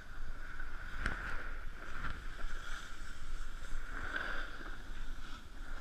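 Snowboard sliding over groomed snow: a steady scraping hiss, with low wind rumble on the camera's microphone.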